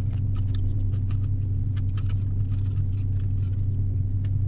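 A car engine idling with a steady low hum, under a run of short crisp clicks and crackles from a plastic spoon in an ice-cream cup and crunchy pretzel pieces being chewed.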